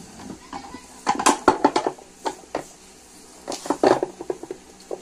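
Office-chair parts of hard plastic and metal clattering and knocking as they are handled, in two bursts of quick clicks and knocks.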